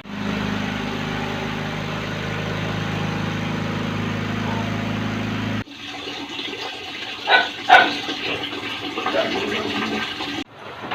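Water running steadily with a low hum underneath, cut off abruptly about halfway through; then a few sharp knocks and light clattering.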